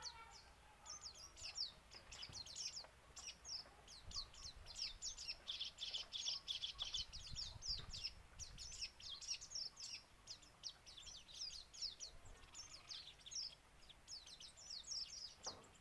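Sogon songbird singing vigorously: a dense, fast run of short, sharp, high down-slurred notes, with the mimicked kingfisher calls it has been trained to include.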